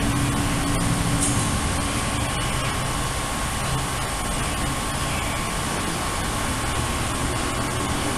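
Steady hiss and rumble with a faint steady high tone running through it, with no distinct events.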